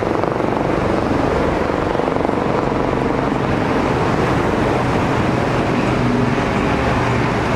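Steady, unbroken engine drone with a low rumble, as heard around standing fire apparatus.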